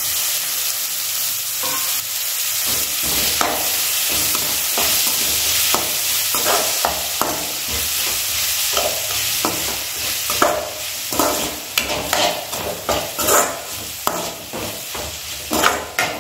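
Chopped tomatoes and onions sizzling in hot oil in a metal kadai, with a metal spatula scraping and knocking against the pan as they are stirred. The spatula strokes start a few seconds in and grow quicker and louder near the end.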